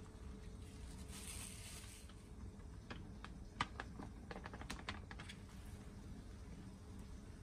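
Faint plastic rustling, then a run of sharp crinkles and ticks lasting about two seconds in the middle: a plastic bag of flour being tipped and shaken to sprinkle flour onto a countertop.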